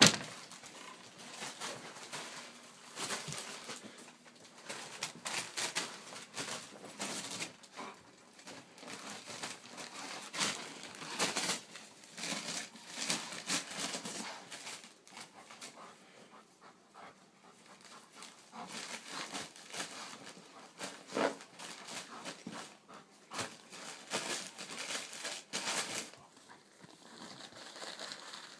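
A dog tearing and chewing at paper: irregular crinkling and ripping, on and off.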